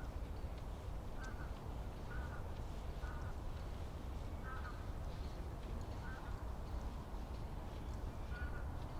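Forest ambience: a bird gives short calls, about seven of them at irregular intervals, over a low steady rumble.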